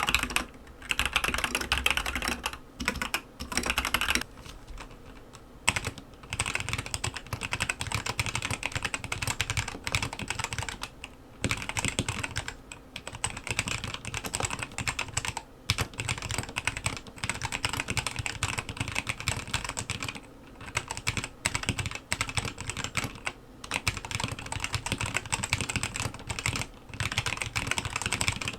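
Typing on an Aigo A100 mechanical keyboard with yellow switches: quick runs of keystroke clacks broken by short pauses.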